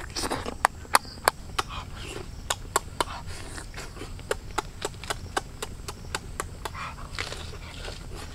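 Cooked duck eggshell cracking as it is peeled by hand: a run of small sharp clicks, about three a second.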